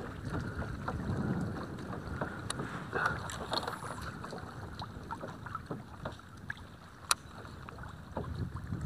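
Water lapping against a kayak hull, with wind on the microphone and many small clicks throughout; one sharper click about seven seconds in.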